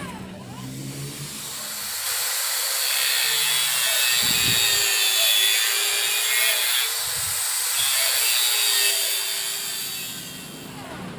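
Small handheld power tool, an angle-grinder-type cutter, cutting through a wooden plank. The high-pitched cutting noise builds about two seconds in, holds, and fades near the end.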